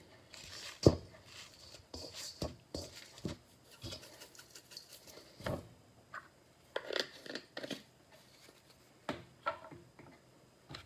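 Dried basil being shaken and tapped out of a spice jar over raw chicken thighs: irregular light taps and patter, with a sharper knock about a second in.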